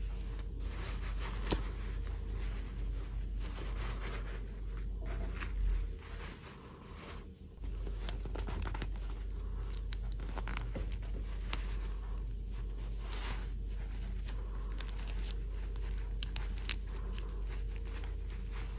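Close-up handling noise: a fabric doll dress rustling and scraping as hands pull it off and onto a plastic fashion doll, with small irregular clicks, over a steady low hum.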